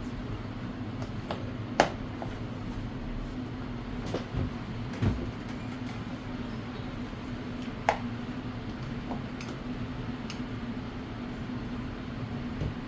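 A screwdriver prying at the plastic case of a DJI T40 remote controller, making a few sharp clicks and soft knocks as the clips resist. A steady low hum runs underneath.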